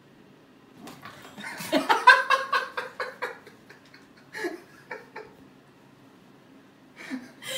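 A person laughing: a quick run of short laughs about two seconds in, then a couple of brief chuckles.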